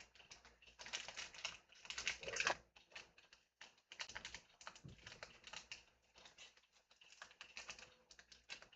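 Irregular plastic clicks, taps and crinkling from printer parts and packaging being handled, coming in short clusters with brief pauses between.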